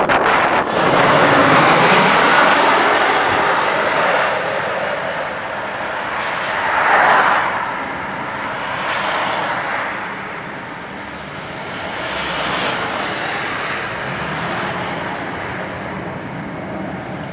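Jet airliner engine noise, a rushing roar that is strongest a second or so in, swells again briefly about seven seconds in, then eases off.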